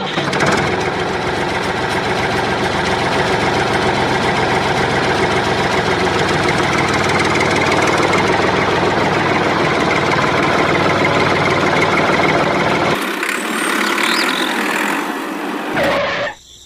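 Tractor engine running steadily at idle, with a knocking, diesel-like rumble. About 13 seconds in the low rumble drops away and the sound thins, then it falls off sharply near the end.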